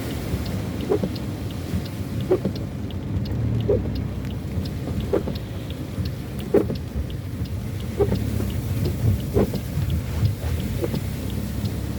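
Car running, heard from inside: a steady low rumble with a regular knock about every second and a half.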